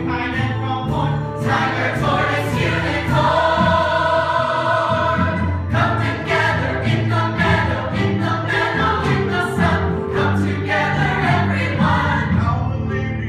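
A stage cast singing together as a choir over instrumental accompaniment with a steady bass line, some notes held for a second or two.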